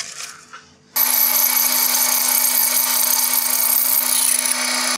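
Metal lathe running while a twist drill bores into a turned metal bushing blank: a steady cutting hiss over an even motor hum, starting abruptly about a second in.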